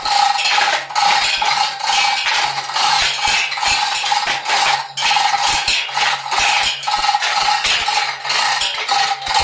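Steel chain of a chain hoist clattering and clinking rapidly as it is worked to lower a submersible pump's pipe column into a borewell, with a steady hum underneath.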